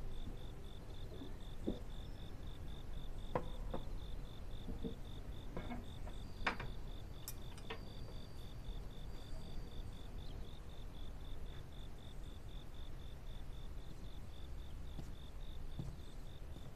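Crickets chirping in a fast, even pulse of about five chirps a second, with a few faint soft clicks and taps.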